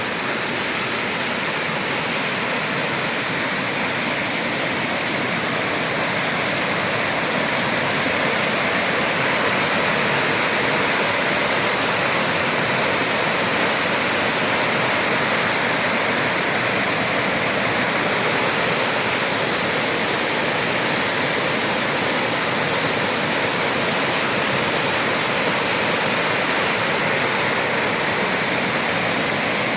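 A waterfall rushing: steady, unbroken water noise with no change throughout.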